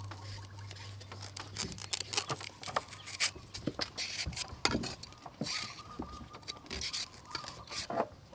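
A flat metal hand peeler scraping the skin off a green banana in a run of short, rasping strokes.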